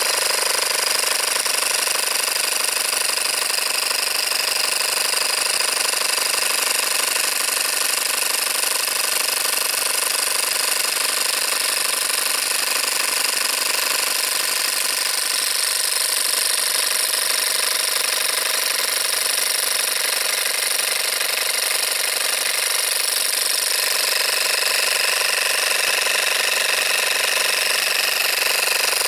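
A 12-volt car air compressor's electric motor and gear-driven piston running steadily at no load with its housing off, in a test run after repair.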